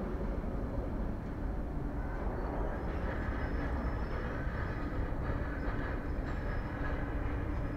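Jet engines of a Boeing 787-8 Dreamliner at low approach thrust, a steady rumble as the airliner flares just before touchdown. A faint high whine joins in about three seconds in.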